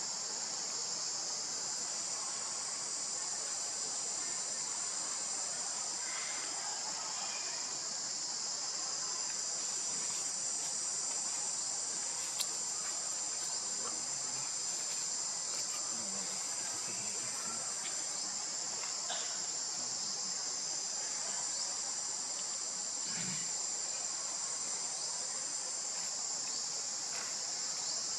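Steady high-pitched insect chorus droning without a break, with a single sharp click about twelve seconds in.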